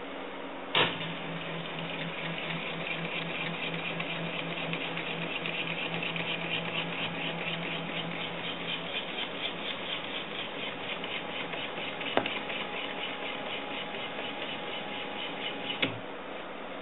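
Stepper motors of a homemade Contraptor mini CNC machine driving the pen across the paper: a steady motor hum with a fast, even pulsing. It starts with a sharp click about a second in, changes tone partway through with another click, and stops with a click near the end.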